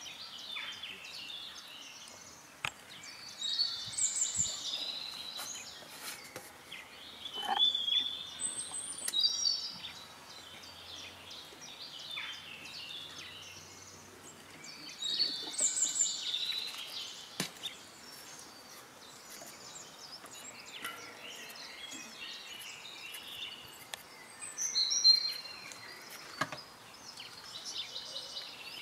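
Birds singing: bright chirping, warbling phrases repeated every several seconds, with a few faint clicks in between.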